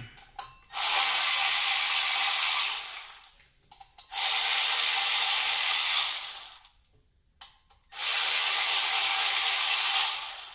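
Cordless electric ratchet running in three bursts of about two and a half seconds each, with short pauses between them, spinning a nut or bolt loose on the engine.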